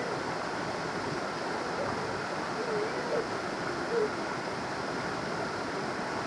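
Creek water rushing over rocks, a steady rush with no break.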